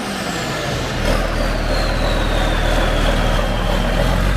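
Freshly restored John Deere 4440's turbocharged six-cylinder diesel running steadily just after its first start, settling back from a rev. A high whine slowly falls in pitch over the first few seconds.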